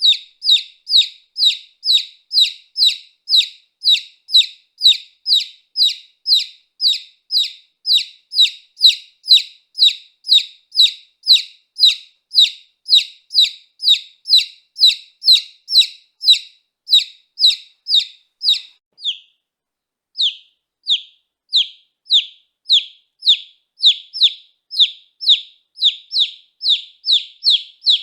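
A baby chick peeping: a steady run of short, high chirps, each sliding downward, about two a second, broken by a pause of about a second roughly two-thirds of the way through.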